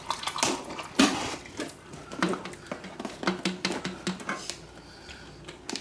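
Scattered clicks, taps and rustles of snack packaging and small items being handled on a tabletop.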